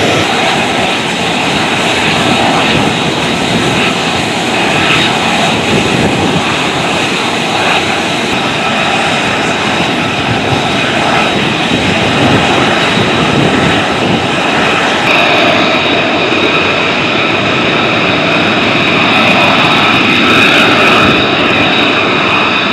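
F-35B Lightning II jet engines running at ground idle: a steady rushing noise with a high whine, the whine growing stronger about two-thirds of the way in.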